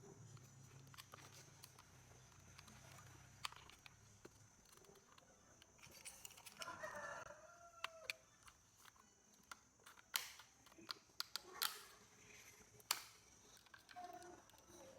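Sharp clicks and taps of a small plastic cassette recorder being taken apart, several in quick succession in the second half. A faint bird call sounds about halfway through, and a low hum fades out in the first few seconds.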